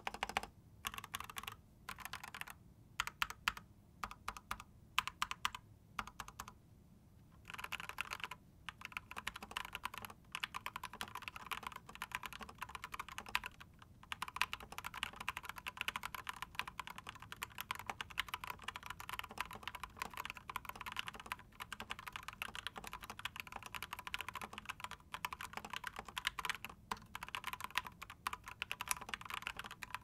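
Typing on a TM680 hot-swap mechanical keyboard fitted with lubed Gateron milky yellow linear switches. The first several seconds hold scattered key presses and short runs with pauses between them; from about eight seconds in it becomes steady, fast typing.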